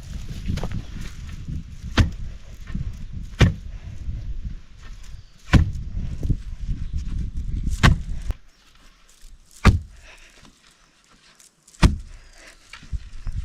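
Sharp knocks, about six of them, one every two seconds or so, like blows struck during building work, over a low rumbling noise that drops away about two-thirds of the way through.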